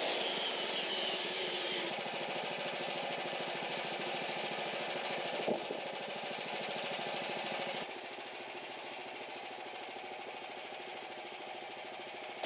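A machine running steadily, its sound stepping down abruptly twice, with one sharp click about five and a half seconds in.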